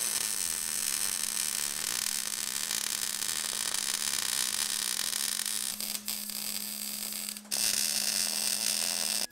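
MIG welding arc crackling steadily as a bead is run on the steel frame of a welding cart, with a steady low hum under it. It breaks off for a moment about seven and a half seconds in, starts again louder, and stops suddenly.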